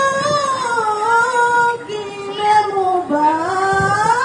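A high voice singing long held notes that slide up and down, with a dip in pitch about three seconds in.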